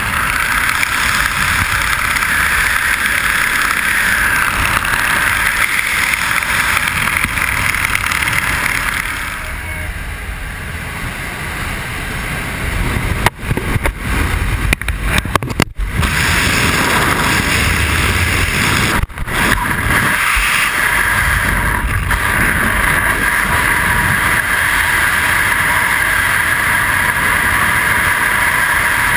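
Loud steady rush of wind and aircraft noise on a skydiver's helmet camera, broken by a few sudden dropouts about halfway through.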